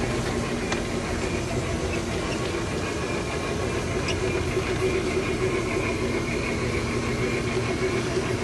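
Bachmann three-truck Shay, a large-scale model locomotive, and its train running on garden track: a steady hum of motor and gearing with wheels rolling on the rails.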